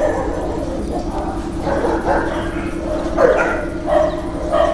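A dog barking in short yips, about five times, over a steady low hum.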